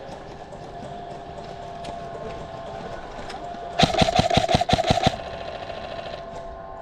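Electric airsoft rifle, a Krytac Trident MKII CRB-M, firing one rapid full-auto burst of about a second, evenly spaced shots over the gearbox motor's whine, about four seconds in.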